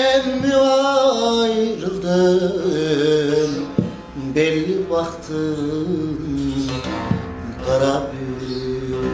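A long-necked divan sazı (bağlama) with a carved mulberry bowl is plucked while a man sings a Turkish folk song in long, held, ornamented notes over it.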